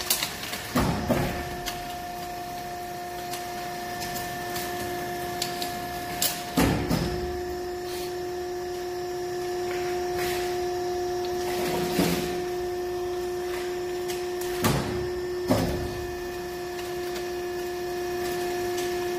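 ECO 800A copper extractor running with a steady hum and whine, broken several times at uneven intervals by short sharp metallic clanks as it works on a scrap electric-motor stator to strip out the copper winding.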